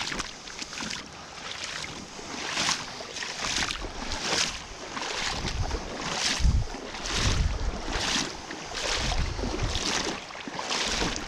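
River water rushing around a wading angler, with a swish about once a second and wind gusting on the microphone in the middle.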